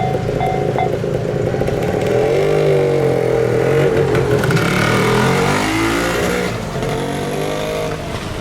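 A level-crossing warning bell rings in a rapid repeating beat and stops about a second in. A road vehicle's engine then speeds up and passes, its pitch rising and then falling.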